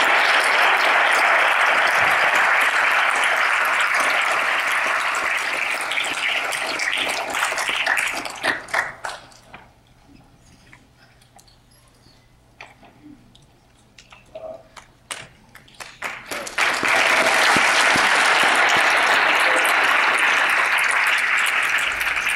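Audience applauding. The clapping dies down to a few scattered claps about nine seconds in, then swells again into a second round of full applause about sixteen seconds in, which is fading near the end.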